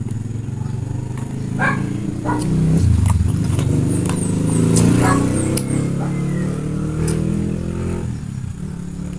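A motor vehicle engine running, with a low drone that bends in pitch, swells to its loudest around the middle and eases off near the end. A few sharp cracks of passion fruit rind being broken open by hand sound over it.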